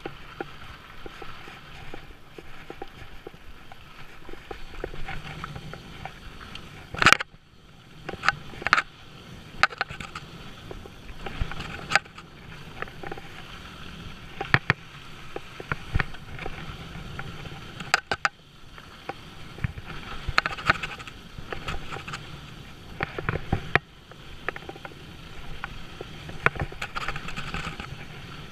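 Mountain bike riding fast down rocky dirt singletrack: a steady rush of tyres on loose dirt, broken by repeated sharp knocks and rattles as the bike hits rocks and bumps. The loudest knock comes about seven seconds in.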